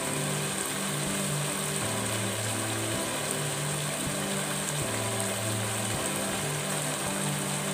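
Chicken livers simmering in a sauce in a nonstick pan, a steady bubbling hiss, under soft background music with low held notes that change every second or so.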